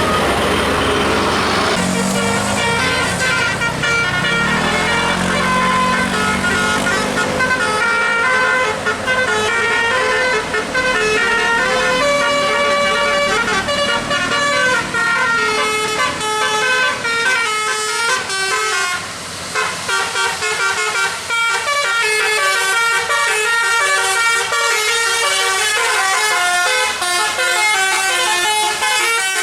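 Bus telolet horn, a multi-trumpet air horn, playing quick melodic tunes of stepped notes one after another. A low tone rises in the first few seconds.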